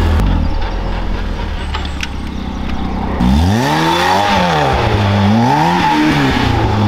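Ariel Nomad's supercharged four-cylinder engine running steadily at low revs, then, from about three seconds in, revving up and falling back twice as the car drives on grass.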